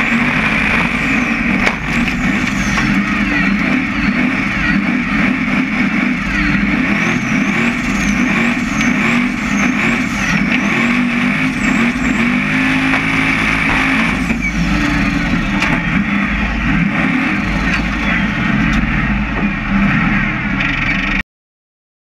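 Formula offroad buggy's engine running hard at high revs while climbing a steep dirt hill, heard from an onboard camera on the car. The revs rise and fall repeatedly midway, and the sound cuts off suddenly near the end.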